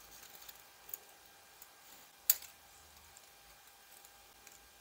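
Faint, light metallic clicks of a feeler gauge blade being slid between the rocker arm and valve stem of a 125cc pushrod engine, checking the valve clearance; one sharper click about two seconds in.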